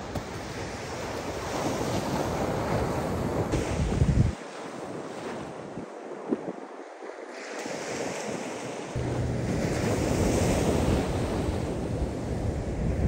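Surf breaking on the shore, with wind buffeting the microphone. The low wind rumble drops out for a few seconds in the middle.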